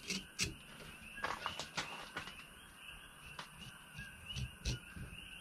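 A knife working into a whole barracuda on a plastic folding table, making a string of short knocks and scrapes. Behind it runs a steady, evenly repeating chorus of chirping night animals.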